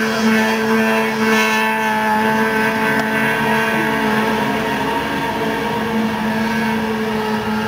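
Snowmobile engine running at a steady, unchanging pitch as the sled skims across open water.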